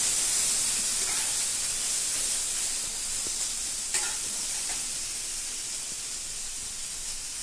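Diced carrots sizzling in hot oil in a steel kadai as they fry, the steady hiss slowly fading, with a light knock about four seconds in.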